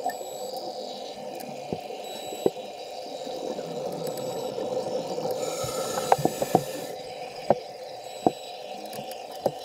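Underwater ambience picked up by a submerged camera: a steady hum with faint hiss, and scattered sharp clicks, a quick cluster of them about six seconds in.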